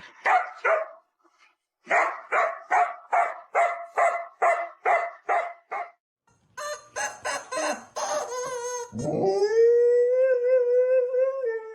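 A dog barking in a quick, steady run of about two and a half barks a second, then a long howl from about nine seconds in that rises and then holds a steady pitch.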